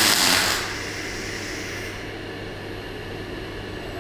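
Robotic MIG welding arc hissing loudly on a steel excavator bucket, cutting out about half a second in. After that a steady low hum of the welding cell's equipment remains.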